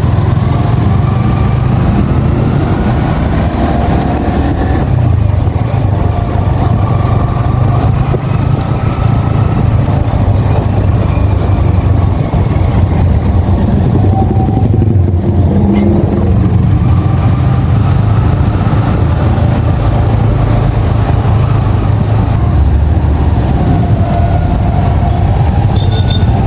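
Yamaha XSR 155's single-cylinder engine running under way, with road and wind noise. The engine note rises and falls as the rider speeds up and eases off, dipping briefly about halfway through.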